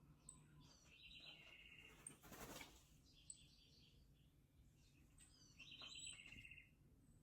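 Faint bird calls: short high chirps and two rapid trilled calls, the second near the end, with a brief burst of rustling noise about two and a half seconds in.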